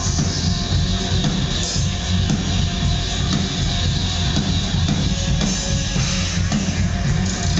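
A live band playing loud instrumental rock with electronic sounds: electric guitar, drum kit and synthesizer, with a heavy low end and no singing.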